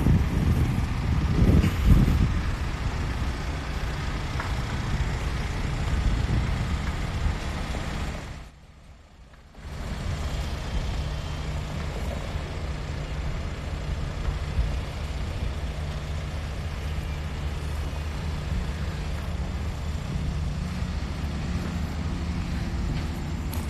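Mitsubishi Triton pickup's engine running with a steady low hum as the truck drives slowly over gravel. The sound drops out completely for about a second roughly a third of the way in.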